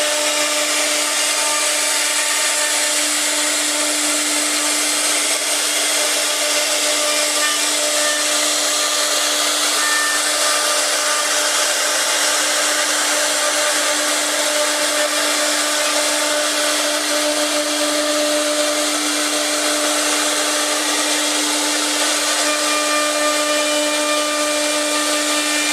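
CC-B1325B CNC router's spindle running steadily while carving wood, a constant whine over the hiss of the cutter in the wood.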